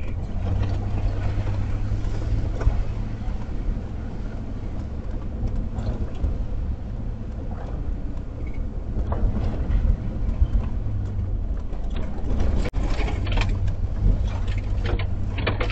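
Van driving slowly over a rutted dirt road, heard from inside the cab: a steady low engine and road drone with scattered clicks and knocks from the bumps.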